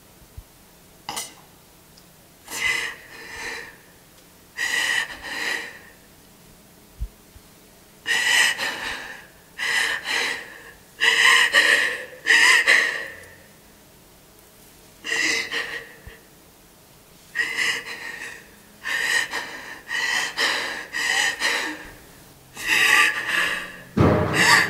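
A young woman's ragged, gasping breaths as she sobs, coming in uneven bursts with short pauses between. A dull thump sounds near the end.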